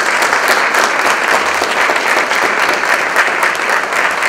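Audience applauding: steady, dense clapping from a roomful of seated listeners at the close of a speech.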